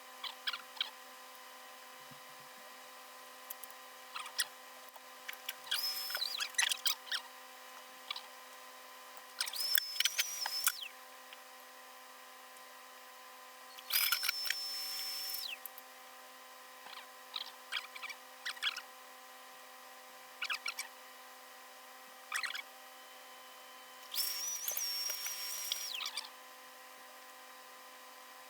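A small electric motor tool running in four short bursts of one to two seconds each, each with a steady high whine, with scattered clicks and handling knocks in between.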